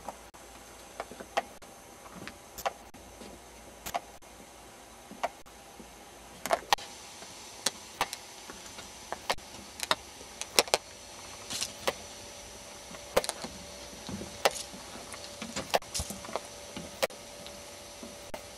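Sharp, irregular clicks and ticks over a steady hiss, about one every second or so at first and more frequent from about six seconds in.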